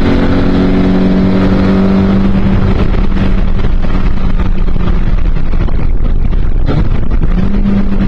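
Toyota MR2 Mk1 race car's engine heard from inside the cockpit, running at steady revs with wind and road noise over it. Near the end the engine note dips briefly and climbs back to the same pitch.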